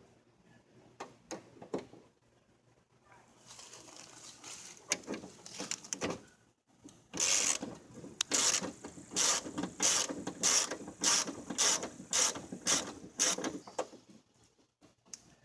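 Hand ratchet wrench clicking as it is worked back and forth, loosening the window regulator's mounting bolts in a car door. A few scattered clicks come first, then a rougher stretch, then a steady run of ratchet strokes about two a second that stops near the end.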